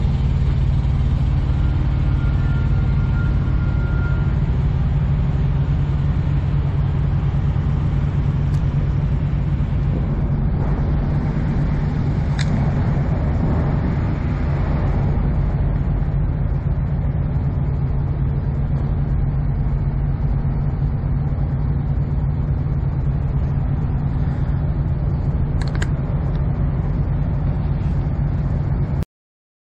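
Diesel semi-truck engine idling steadily, a constant low drone that cuts off abruptly just before the end.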